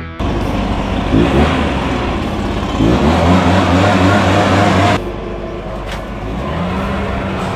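Handheld leaf blower running with a loud rushing blast, its motor whine rising in pitch about a second in and again about three seconds in. It drops to a quieter steady run at about five seconds, and the pitch rises once more near the end.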